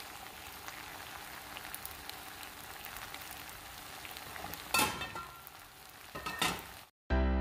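Chicken frying in a pan: a steady sizzle with small crackles. About five seconds in, and again near the end, two louder scrapes of a spoon stirring against the pan. Music starts just before the end.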